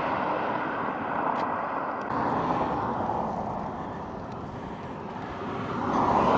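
Road traffic going by: a passing vehicle's rush fades away, and another swells up as it approaches near the end.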